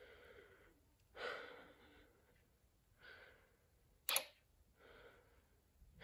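Faint breaths close to the microphone, four soft puffs, and a single sharp click about four seconds in.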